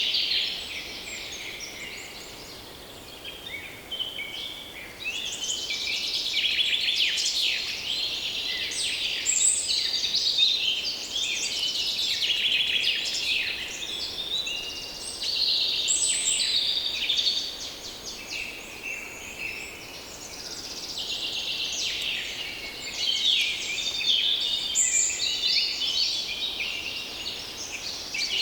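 A dense chorus of many forest birds singing and calling at once, with rapid chips, trills and short phrases overlapping, and short lulls about three seconds in and again past the middle. A faint breeze runs underneath.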